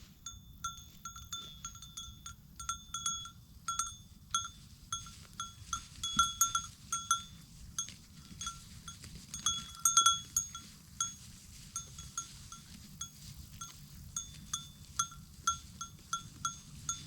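A bell worn by one of the sheep clanks irregularly as the flock moves, ringing dozens of short strokes with busier flurries about six and ten seconds in.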